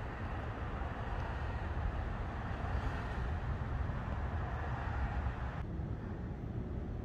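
Steady outdoor background noise, mostly a low rumble, with no distinct events; the higher hiss drops away about five and a half seconds in.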